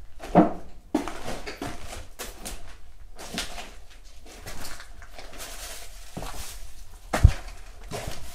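Irregular knocks, scuffs and rattles of things being moved or stepped on. There is a sharp knock about half a second in and a heavy thud a little after seven seconds in.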